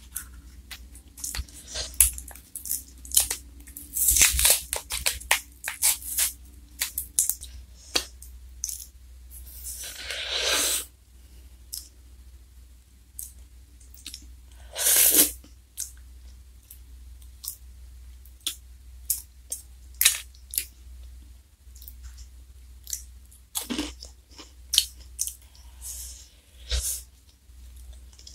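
Crinkling and crackling of a foil-and-paper ice cream cone wrapper being peeled off. Then mouth-close bites and crunchy chewing of a Glico Wings J.Cone's black wafer cone with its ice cream, with scattered crisp crunches and a couple of longer rushing noises.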